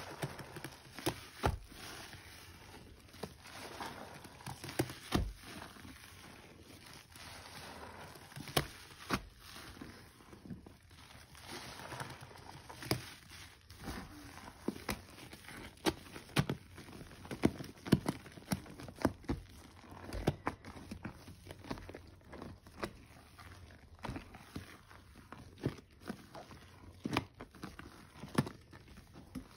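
A soapy sponge being squeezed by hand: irregular wet squelches and crackling pops of suds over a steady hiss.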